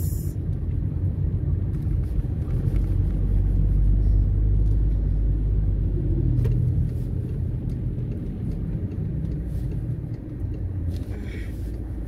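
Steady low rumble of a car driving on a snowy road, heard from inside the cabin: engine and tyre noise, a little quieter in the last few seconds.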